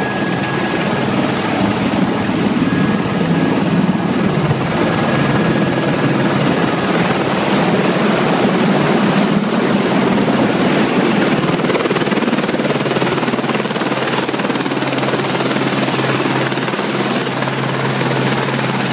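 Helicopter engine and rotor running, a loud steady noise with a thin high whine over it.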